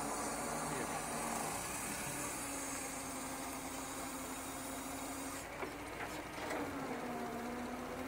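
Small Parsun outboard motor idling steadily, its pitch dipping briefly and settling again about two-thirds of the way in. A couple of light knocks sound just before the dip.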